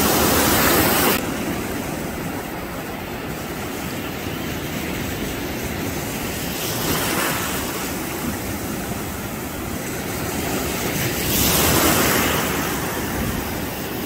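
Surf breaking and washing up the beach in a steady rush. The sound is loudest at the start, drops suddenly about a second in, and swells again with waves about seven and twelve seconds in.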